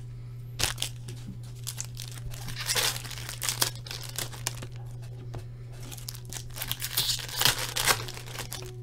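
Foil hockey-card pack being torn open and crinkled by hand, in irregular rustling bursts, over a steady low hum.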